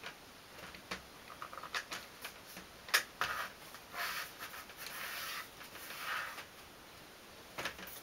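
Hands handling parts during a window air-conditioner frame installation: scattered light clicks and knocks, one sharper knock about three seconds in, with stretches of rustling in the middle.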